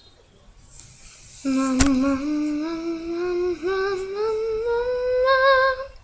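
A girl's voice humming one long note that slides slowly upward, with a single click just after it begins.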